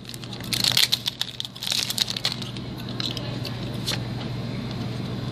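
Foil Pokémon booster pack wrapper crinkling and tearing open in two short bursts in the first couple of seconds, then a few light rustles and a tick as the cards are handled, over a steady low hum.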